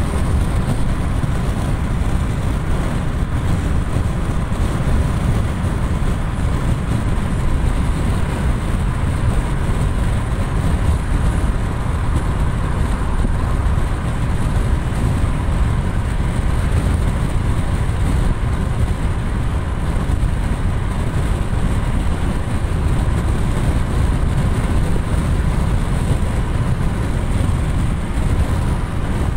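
Steady road noise of a car driving along a highway, heard from inside the cabin: a continuous low rumble of tyres and engine with no break or change.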